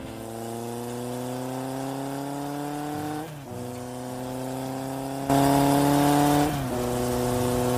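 A motor vehicle's engine speeding up in a slow rising pitch, dropping back about three seconds in, as at a gear change, and rising again, with a louder stretch between about five and six and a half seconds.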